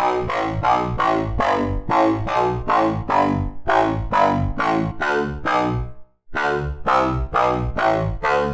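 FM-synthesized bass patch from Sytrus playing a fast repeating run of short notes, about four a second, with a brief dropout about six seconds in before the pattern starts again.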